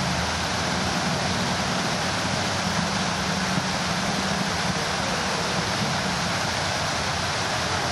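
Buckingham Fountain's jets spraying and falling into its basins and pool: a steady rushing splash of water.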